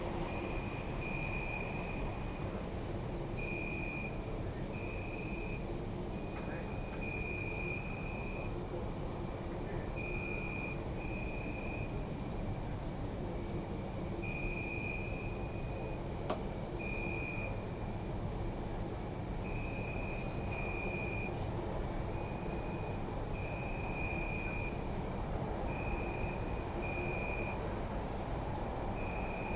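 Crickets chirping at night: a continuous high-pitched trill broken by brief gaps, with a lower, short chirp repeating every second or two, over a low steady rumble.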